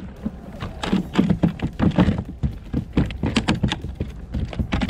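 Halibut just landed on a plastic kayak, flopping against the hull: a rapid, irregular run of thumps and taps starting about half a second in.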